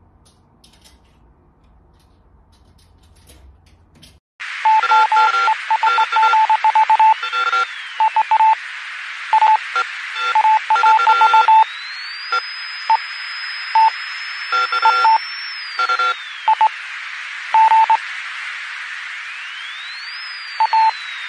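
Dial-up modem handshake sound: starting suddenly about four seconds in, a loud hiss with rapid short beeps and a tone that glides slowly up and down, cutting off at the end.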